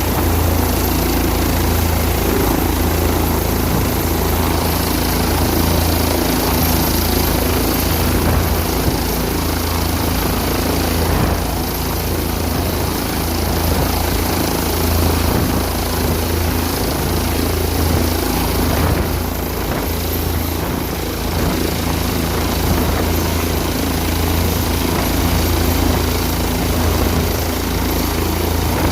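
Bell 407 helicopter running at takeoff power: its four-blade main rotor and single turboshaft engine make a loud, steady beat with a thin, high turbine whine above it.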